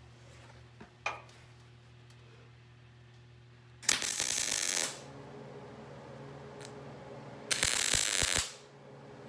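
MIG welding arc crackling on steel sheet in two short welds of about a second each, about four and eight seconds in, over a steady low hum. A single click about a second in.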